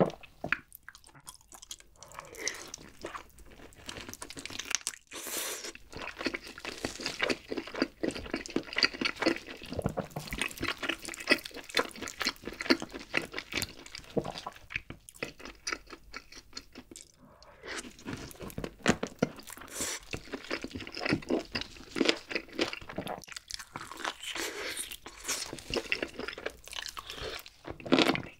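Close-miked chewing and biting of grilled chicken drumstick meat dipped in a creamy white sauce, with a few short pauses between mouthfuls.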